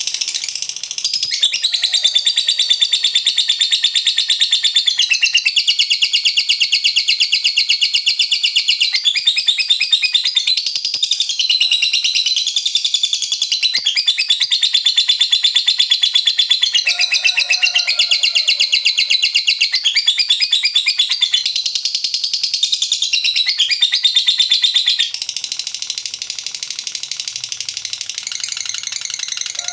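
Lovebird singing a long, unbroken, very rapid chattering trill ("ngekek panjang"), high-pitched, its pitch swooping up and down in places. The trill grows quieter about 25 seconds in.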